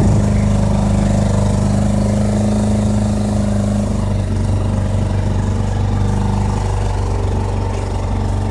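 A small boat's motor running steadily, with a low, even engine note; its tone shifts slightly about four seconds in.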